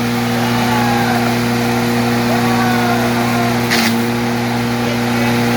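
A 5 hp, 220 volt electric wood chipper running steadily with a constant hum from its motor, with a short sharp crack about four seconds in as something fed into it is chipped.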